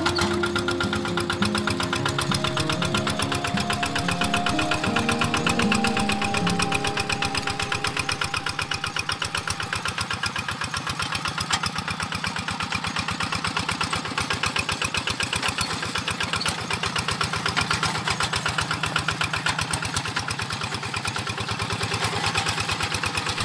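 Single-cylinder diesel engine of a two-wheel hand tractor running steadily with a rapid knocking beat as it pulls a cage-wheeled harrow through flooded paddy mud.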